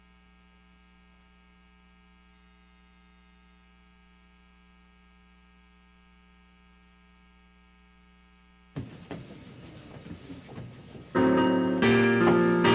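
Faint steady electrical hum, then about nine seconds in a sudden knock and rustling, and a couple of seconds later a piano starts playing a hymn tune.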